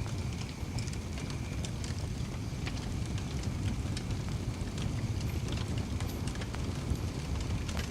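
Wood fire burning in a fireplace: a steady low rumble of flames with irregular sharp crackles and pops. A thin high whistle fades out in the first couple of seconds.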